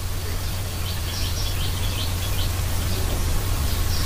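Steady low electrical hum with hiss, the recording's background noise, with a few faint short high chirps about a second in and again near the end.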